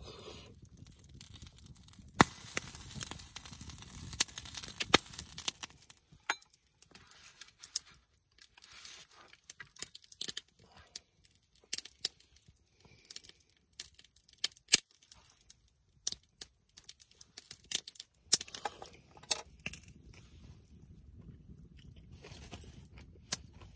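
Close-up eating sounds: chewing, with wooden chopsticks clicking against a small skillet and dish in sharp, irregular clicks.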